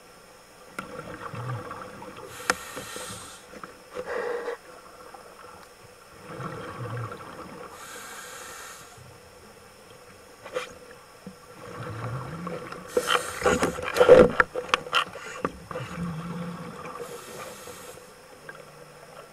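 Underwater, a scuba diver breathing through their gear: slow breaths with a hiss of exhaled bubbles three times. About two-thirds of the way through comes a quick cluster of sharp knocks and clicks, the loudest part.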